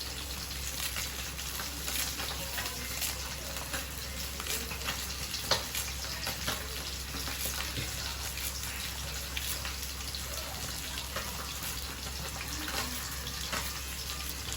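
Fish frying in hot oil: a steady sizzle with frequent small crackles and pops, one louder pop about five seconds in.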